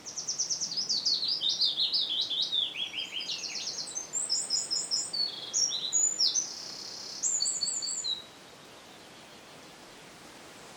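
A songbird singing one long song of about eight seconds: a fast string of varied high trills and chirps that jumps up and down in pitch, then stops abruptly. A steady hiss lies underneath.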